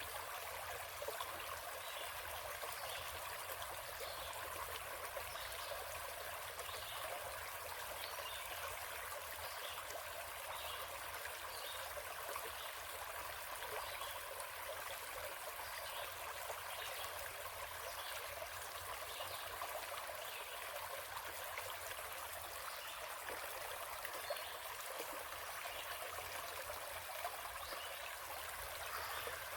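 A stream flowing steadily, a constant rush of water with many small trickles and splashes.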